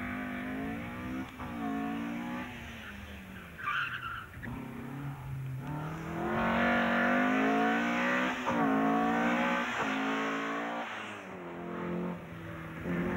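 Opel Kadett C slalom race car engine revving hard, its pitch climbing again and again and dropping sharply at each gear change or lift, loudest in the middle stretch. A brief tyre squeal about four seconds in.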